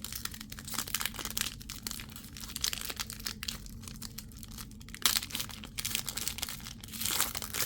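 Trading cards being handled and flipped through by hand: a run of light clicks, slides and crinkly rustles, louder about five seconds in and again near the end.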